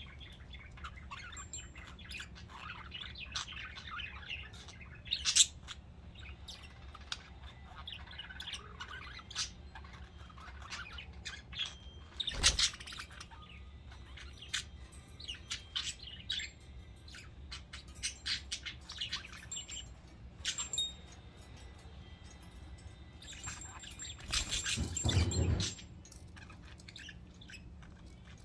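Budgerigars chirping and chattering in a quick, scattered flow of short high calls. About twelve seconds in there is a single sharp knock, and near the end a louder rushing noise lasting a second or so.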